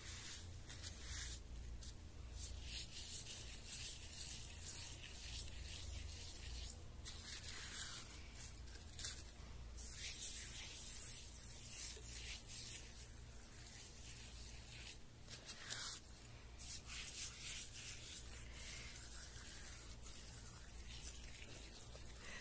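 Fingers rubbing a gritty homemade sugar, coffee and coconut oil scrub over facial skin: faint, irregular scratchy strokes over a low steady hum.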